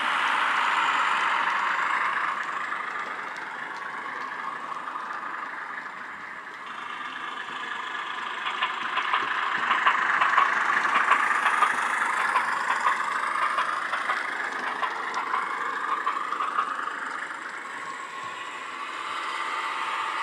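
Diesel-hydraulic shunter engine sound from the DCC sound decoder in a Hornby OO-gauge Sentinel 0-6-0DH model, played through a small ESU Sugarcube speaker, its engine note slowly shifting in pitch. It grows louder from about eight seconds in, with a quick run of clicks from the model's wheels on the track.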